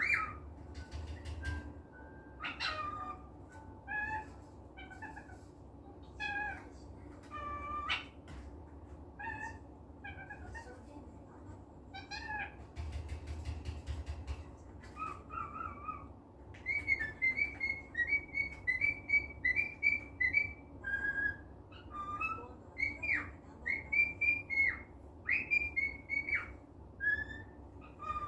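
Cockatiel chirping and whistling in a contented mood: scattered short calls at first, then in the second half a quick string of short whistled notes repeated over and over.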